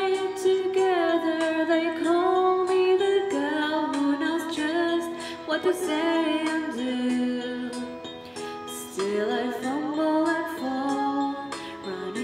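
A woman singing a slow ballad into a handheld wireless karaoke microphone, holding long notes, over a backing track played from a phone connected to the mic.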